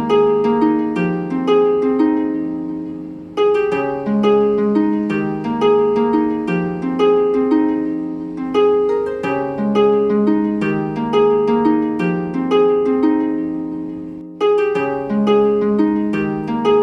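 Background music of plucked, harp-like notes playing a light repeating melody, each note struck and dying away, with a brief break about three seconds in and again near the end.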